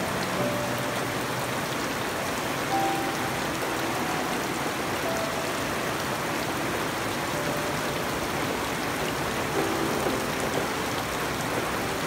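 Steady rain falling on garden foliage and wet, muddy ground.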